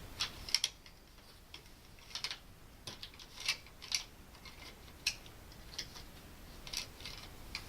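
Scattered light clicks and scrapes, about one a second and irregular, from hands pushing spliced wires and plastic wire nuts up into a ceiling electrical box.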